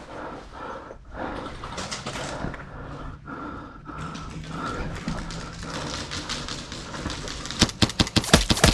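A rapid string of sharp airsoft shots, about eight cracks in a second near the end, over a steady background of movement noise.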